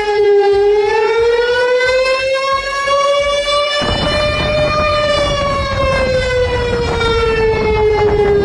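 Warning siren wailing in one slow cycle: its pitch rises over the first four seconds and falls again toward the end. From about four seconds in, the rushing noise of floodwater runs under it.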